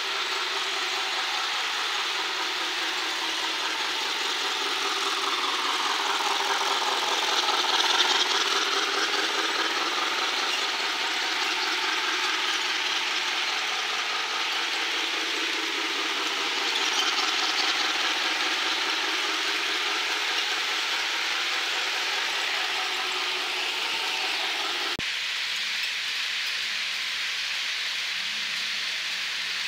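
HO scale model passenger train running on sectional track: a steady whir of the locomotive's motor and the rolling and clicking of wheels over the rails. It swells twice as the train passes close, and the sound changes abruptly about 25 seconds in.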